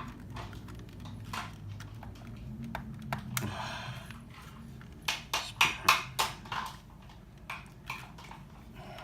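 Plastic shell of a PS4 controller being pried apart by hand, its clips clicking and snapping as they release, with a quick run of loud sharp clicks from about five to six and a half seconds in. A low steady hum runs underneath.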